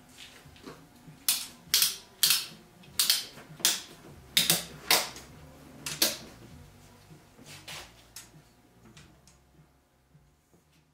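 Hard plastic and metal clicks and snaps as a paramotor's hoop and spar sections are fitted and locked together by hand: about ten sharp clicks in quick, irregular succession over five seconds, then a few fainter ones.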